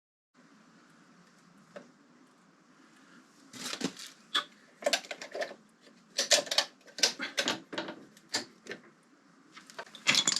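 Irregular sharp clicks and taps of small metal parts and hand tools being handled during work on the motorcycle's light fittings, in a quick uneven run that starts about three and a half seconds in and stops a second before the end.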